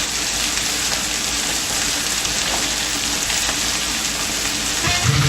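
Chopped peppers frying in olive oil in a frying pan, a steady sizzle. Electric guitar music comes in near the end.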